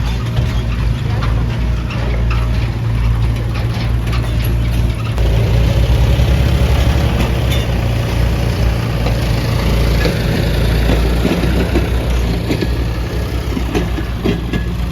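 Mahindra backhoe loader's diesel engine running steadily, louder for a few seconds from about five seconds in, with scattered knocks.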